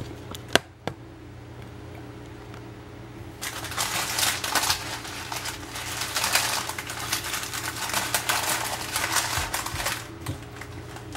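Parchment-wrapped fruit leather being stuffed into a fabric snack pouch and the pouch closed: a sharp click about half a second in, then a long run of dense crinkling and clicking from parchment and pouch that stops near the end, over a steady low hum.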